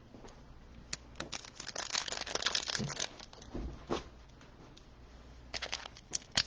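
Bowman Chrome trading-card pack wrapper being torn open and crinkled: a couple of seconds of dense crackling from about a second in, a few sharp crackles after it, and another run near the end.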